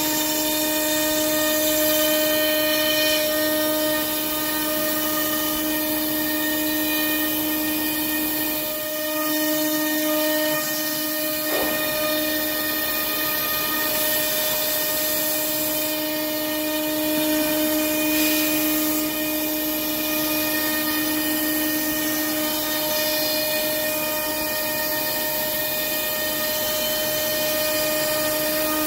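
PrintNC CNC router spindle cutting 17 mm construction plywood with a 6 mm two-flute cutter on a roughing contour pass: a steady high-pitched whine of several tones over a hiss of air blowing from the coolant nozzle. About nine seconds in the low cutting noise drops out for a couple of seconds.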